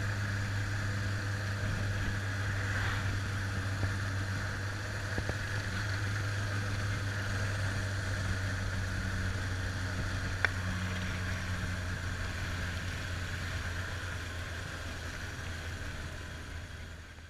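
Kawasaki Zephyr's air-cooled inline-four engine running at a steady cruise, heard from the rider's seat with wind noise over it. There are a couple of short clicks about 4 and 10 seconds in, and the sound fades out at the end.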